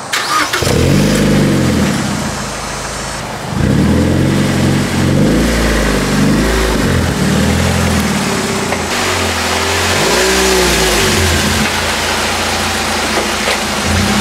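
A 2006 Mazda Miata NC's four-cylinder engine blipped through its exhaust several times, each rev rising and falling back to idle; it still has its original header, before the Tomei header is fitted.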